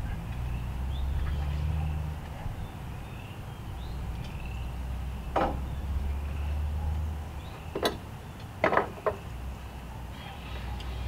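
Wind buffeting the microphone as a steady low rumble, with small birds chirping. Four sharp knocks land in the second half, from work on the wooden fascia framing.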